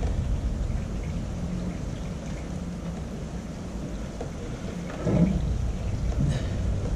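Steady background hiss with a low rumble, and a brief muffled sound about five seconds in.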